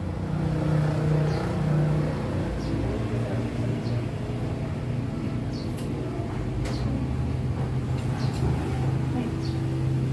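Small motorcycle engine idling steadily, its pitch wavering slightly.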